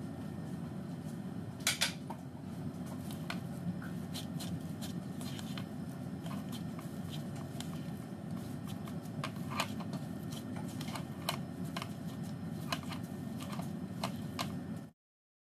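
Red silicone spatula scraping and tapping a non-stick frying pan while mashing and stirring potatoes: irregular clicks and scrapes over a steady low hum. The sound cuts off suddenly near the end.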